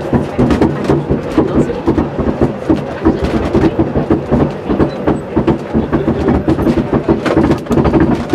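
Electric rack-railway train running along the track: a steady hum with rapid, irregular clicks and knocks from the running gear.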